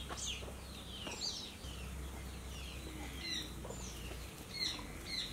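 Small birds chirping in the background: many short, high chirps that fall in pitch, several a second, over faint rural outdoor ambience.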